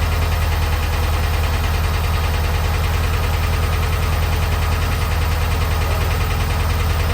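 Engine idling steadily with an even, rapid pulse and a strong low hum; its owner is unsure whether this sound is normal or a sign of a fault.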